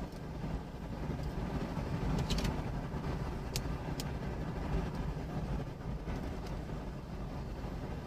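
Steady low rumble from storm-chase footage, with a few faint clicks.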